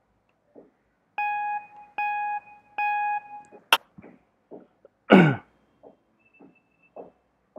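Short intro sound effects: three identical steady beeping tones about a second apart, a sharp click, then a loud swoosh falling in pitch.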